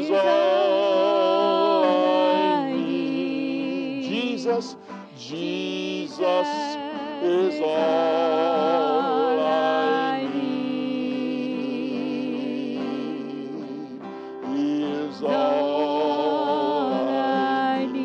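Gospel worship song: a singer holding long notes with a wide vibrato over instrumental accompaniment, with short breaths between phrases.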